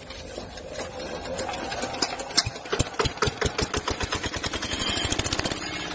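Single-cylinder horizontal diesel engine starting: its firing strokes come faster and faster, then settle into steady running near the end.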